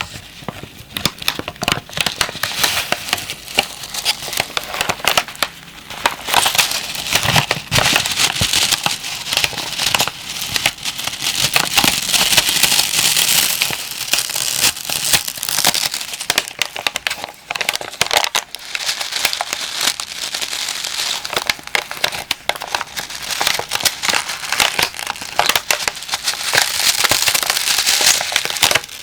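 Plastic moisture-absorber pack being crinkled: a dense, continuous crackle of many small crinkles, busier in two long spells.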